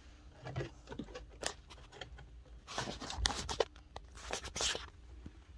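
Plastic dashboard trim panel being pried and pushed loose by hand: scattered clicks and short scraping, rustling sounds as the panel and its clips work free, with a couple of longer scrapes in the middle.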